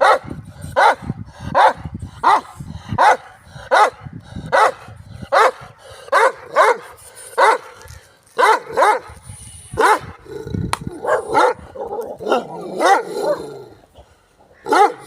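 A dog barking over and over at an even pace, about one bark every three-quarters of a second. Later the barks come quicker and run together before a last loud bark near the end.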